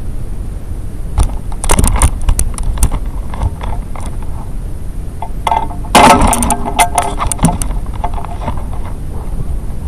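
The weather-balloon probe's payload rattling and knocking as it swings beneath its parachute, picked up by the onboard camera's microphone over a steady low rumble. There are two spells of clattering clicks, one starting about a second in and a louder one about six seconds in.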